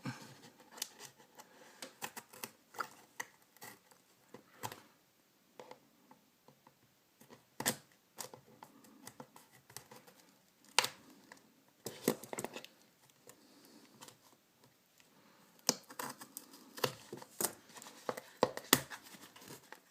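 Scissors cutting through packing tape on a parcel, with irregular sharp snips and clicks and rustling as the packaging is handled and opened.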